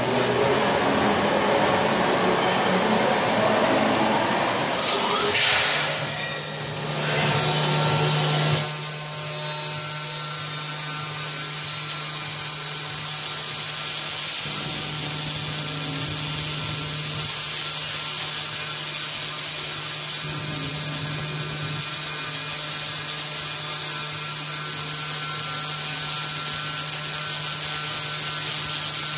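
Spindle of a GLASSMAN vertical CNC glass drilling and grinding machine running at high speed: mixed machine noise at first, then, about a third of the way in, a loud steady high-pitched whine over a low hum that holds to the end.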